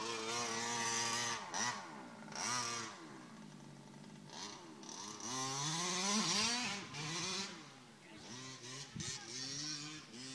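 Radio-controlled car's small engine revving up and down, its pitch rising and falling repeatedly as it is driven hard over dirt.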